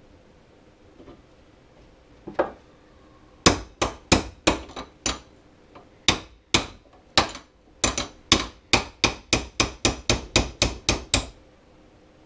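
Hammer striking a steel pin punch to drive a small roll pin in a snowmobile secondary clutch plate: metal on metal. A couple of light taps, then about twenty sharp ringing strikes that come faster, about three a second, in the second half.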